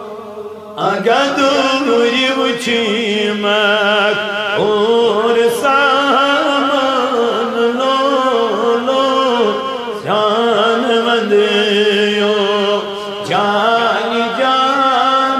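A man singing a naat, a devotional Islamic poem, in long ornamented phrases with a wavering pitch, through a microphone. New phrases begin about a second in, then near 4.5, 10 and 13 seconds, with short breath pauses between.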